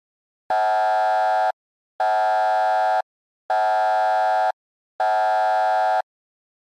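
Four identical buzzy electronic alert tones, each about a second long with half-second gaps between them: the attention signal that opens an earthquake early warning alert.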